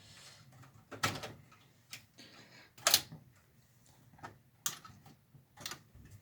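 Sharp clicks and knocks, about five of them, from handling the inside of a desktop computer case while the old graphics card is taken out; the loudest knock comes about three seconds in.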